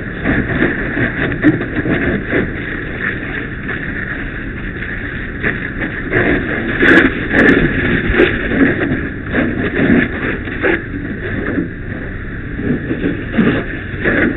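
A heavy structure fire burning, with a steady rushing roar and frequent crackles and pops from the burning debris.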